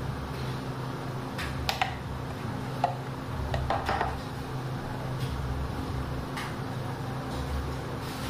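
A few light clicks and knocks of kitchen utensils being handled, clustered in the first half, as chocolate ganache is poured and a palette knife is taken up, over a steady low hum.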